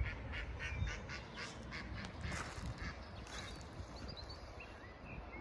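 Ducks quacking in a quick run of calls through the first few seconds, then small birds chirping thinly.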